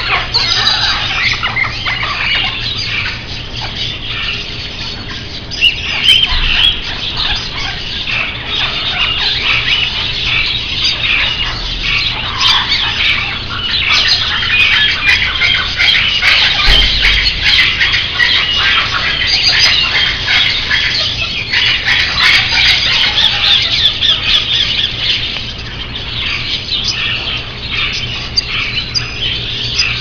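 Dense, continuous chatter of many caged parakeets and budgerigars, overlapping chirps and squawks with no pause.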